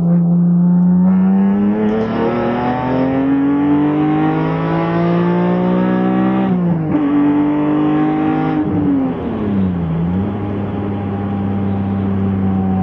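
2001 BMW M3 E46's 3.2-litre straight-six, fitted with Gruppe M parts, pulling hard under acceleration, its pitch climbing steadily. It drops sharply about seven seconds in at a gear change, climbs briefly again, then falls away as the driver lifts off and settles to a steady drone.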